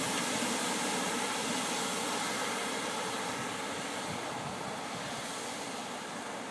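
Helium gas venting from the roof quench pipe of a 1.5 tesla MRI magnet during a scheduled quench: a steady rushing hiss that eases off slightly over the seconds.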